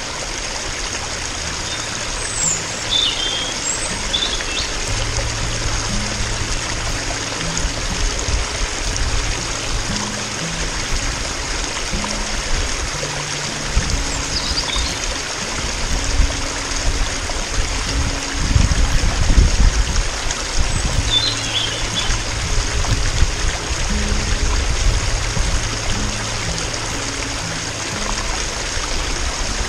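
A stream trickling, with a few short high bird chirps. Soft background music with slow low notes plays along.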